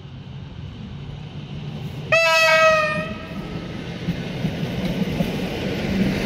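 EN57 electric multiple unit sounding its horn once, a single note of about a second, about two seconds in. Afterwards the rumble of the approaching train grows steadily louder.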